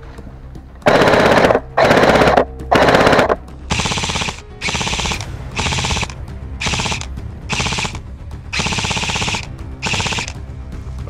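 Airsoft rifles firing on full auto in bursts: three loud bursts about a second apart early on, then a string of six shorter, quieter bursts.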